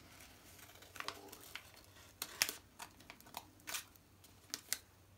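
Scissors snipping through paper covered in glued tissue-paper squares: short, irregular snips, with the paper crinkling as it is handled.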